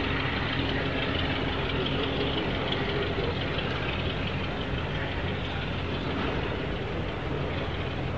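Diesel locomotive engine running with a steady, low, even drone as it hauls a train of coaches away.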